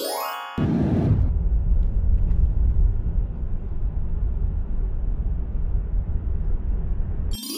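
Steady low rumbling noise, opening with a rising sweep of tones and with another rising tone sweep starting near the end.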